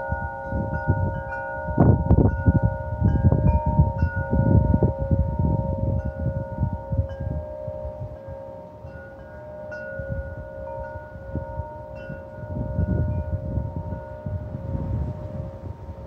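Metal wind chimes ringing in gusty wind: several tubes of different pitch struck again and again, their tones overlapping and dying away slowly. Underneath, gusts of wind rumble and ease, strongest in the first few seconds and again near the end.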